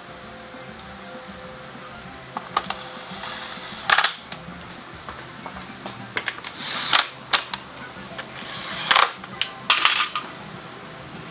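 A series of sharp metallic clanks and clicks, like tools and parts being handled during scooter tyre work, louder around the middle and latter part, over faint steady background music.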